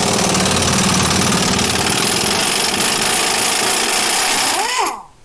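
Impact wrench hammering steadily as it removes the bolt that holds the suspension to the front strut. The trigger is released near the end and it stops with a short sliding pitch as it winds down.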